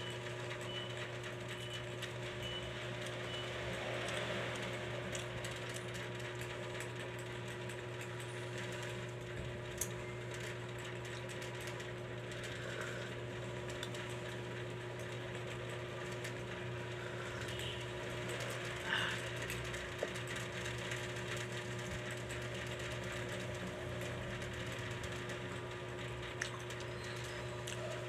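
Steady low machine hum, like a small motor running, with a few faint clicks and soft eating noises now and then.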